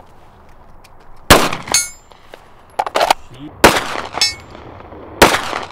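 Three 9mm pistol shots from a Wilson Combat P320, a couple of seconds apart. Each shot is followed about half a second later by the distant ringing clang of a steel target being hit at long range.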